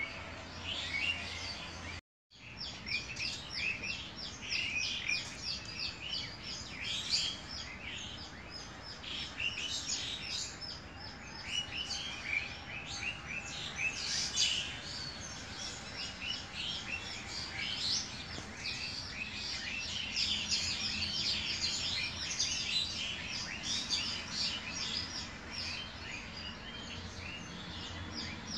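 A crowd of small birds chirping continuously, a dense chatter of short, high chirps. The sound cuts out completely for a moment about two seconds in.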